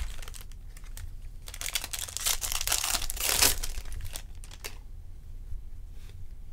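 Trading card pack wrapper being crinkled and torn open, a crackly rustle that builds through the middle and peaks just after three seconds, then stops near the five-second mark.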